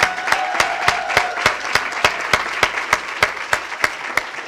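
An audience applauding, with one clapper close to the microphone clapping steadily about three times a second above the rest.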